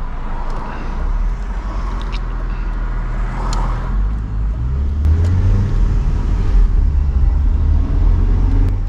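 Engine and road noise inside a moving Audi car's cabin, a steady low hum that grows louder about five seconds in.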